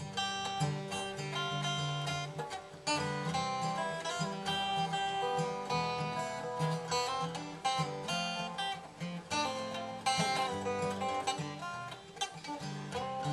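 2005 Martin D-15 all-mahogany dreadnought acoustic guitar played fingerstyle: picked melody notes ringing over a steady, changing bass line.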